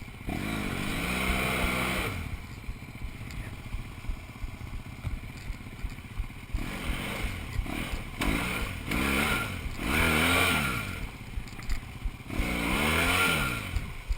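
Motorcycle engine revved hard in repeated bursts, each rising and falling in pitch, with clattering between them: a bike being throttled to find grip in mud and getting stuck.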